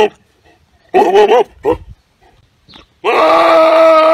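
Goat bleating: a call about a second in, a short one just after it, then one long, loud bleat from about three seconds in, held at a steady pitch for over a second.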